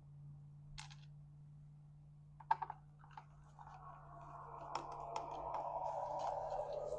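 Small parts of an air launcher being handled during reassembly: a quick cluster of clicks, then a steady rubbing with light ticks that grows louder toward the end.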